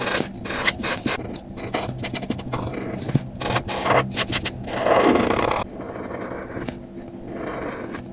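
Marker tip scratching across paper in quick strokes, with one longer, heavier rub about five seconds in, then lighter strokes.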